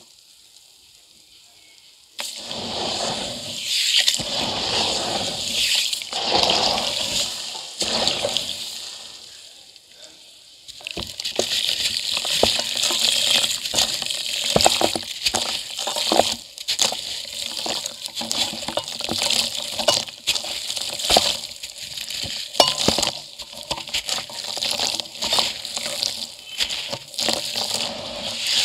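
Hands squishing and crumbling chunks of dry cement in water in a steel bucket. The water sloshes in slow swells at first, then, about a third of the way in, gives way to a dense crackle of wet grit and small splashes as the cement breaks up into sludge.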